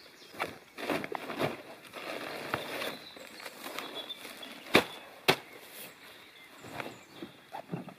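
Canvas duffel bag and a folded tarp rustling and crinkling as the tarp is pulled out of the bag by hand and laid down, with two sharp knocks about five seconds in.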